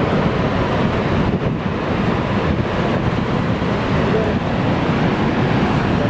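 Steady, unbroken rush of Niagara's Horseshoe Falls: a vast volume of water pouring over the curved brink and crashing into the basin below, heavy in the low and middle range.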